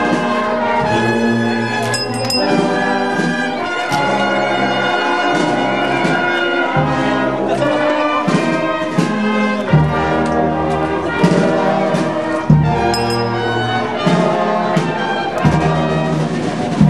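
Brass band music: long held brass chords moving from note to note, with a low drum hit now and then.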